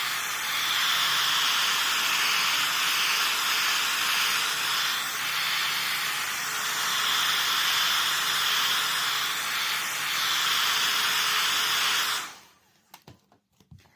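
Hot air gun blowing steadily, heating the back of a phone; it cuts off suddenly about twelve seconds in, followed by a few faint clicks.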